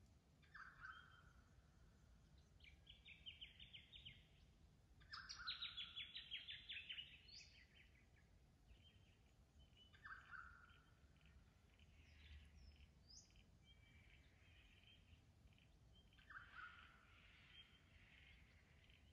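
Several birds calling faintly in bushland: a short call repeated about every five seconds, bouts of rapid chattering trills, and a couple of quick rising whistles.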